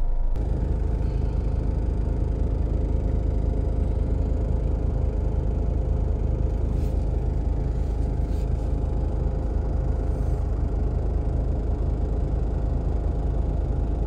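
Steady low rumble of a car engine idling, heard from inside the cabin.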